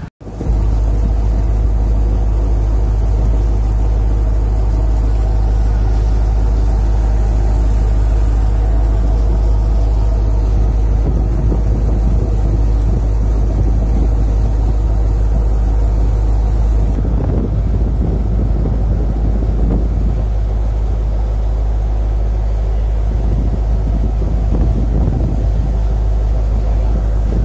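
Small transport boat's engine running steadily, a loud low hum with a steady drone above it.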